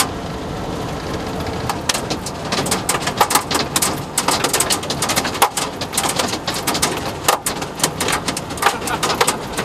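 Hailstones striking a car's windshield and body, heard from inside the cabin: sharp, separate clacks that begin about two seconds in and come thicker and faster, over a steady hiss.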